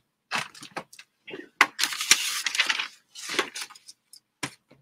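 Pen scratching on paper in short strokes as a note is written, mixed with a few small clicks and knocks of handling; the scratching is densest in the middle.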